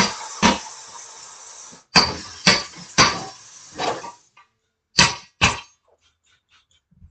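Sharp metal clanks and knocks of tire-changing tools on a steel wheel rim, about eight strikes in the first five and a half seconds, with a steady hiss under the first four seconds.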